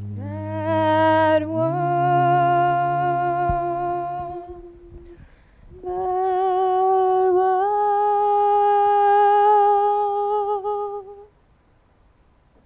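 Show choir voices singing without words, humming: first a held chord of low and high voices that moves up about a second and a half in, then after a brief break one high line holds a long note, steps up once, and stops shortly before the end.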